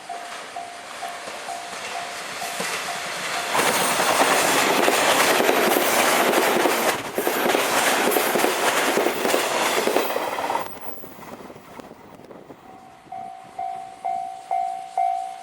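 Japanese level-crossing warning bell ringing in quick, even dings. About three and a half seconds in, a JR East 583 series electric train passes close by for about seven seconds, a loud rush of wheel and rail noise that drowns the bell. The bell rings again near the end, growing louder.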